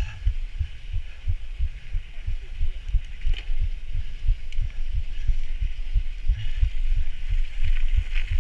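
Irregular low thumping of wind buffeting and riding jolts on the camera's microphone as a fat bike rides over packed snow, over a steady hiss.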